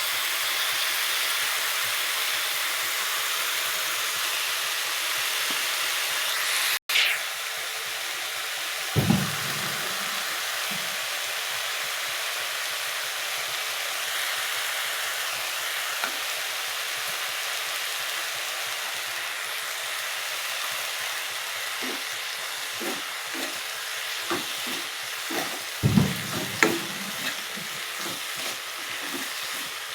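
Kakrol (spiny gourd) bhaji frying in hot oil in a pan, with a steady sizzle. Now and then a spatula stirs it, scraping and knocking against the pan, with two louder knocks.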